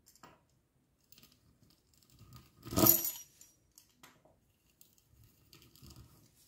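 Metal fluted pastry wheel rolling through thin sesame dough on a hard worktop: faint scraping and ticking, with one sharp metallic clink about three seconds in.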